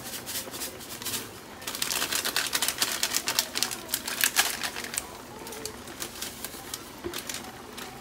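Plastic sachet of sour seasoning powder crinkling and being tapped as it is shaken out over the pan. A rapid run of crackling ticks comes from about two to five seconds in, with sparser ticks around it.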